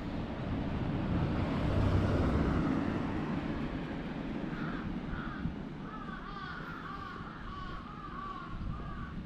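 A low rumble swells and fades over the first few seconds. Then a bird calls over and over in quick, short notes through the second half.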